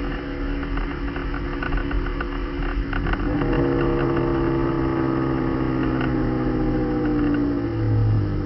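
The M52TU 2.8-litre straight-six of a BMW E36 running through a straight-piped exhaust with no mufflers or silencers, holding a fairly steady engine note. A scattering of light crackles comes in the first few seconds, and the note grows briefly louder near the end.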